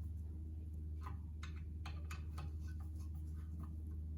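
Faint, irregular clicks from a Phillips screwdriver tightening the metal retaining-plate screws on a carpet-cleaning hand tool's spray jet, over a steady low hum.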